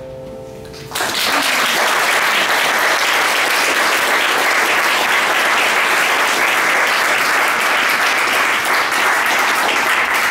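The last grand piano chord rings for about a second, then a small audience breaks into steady applause.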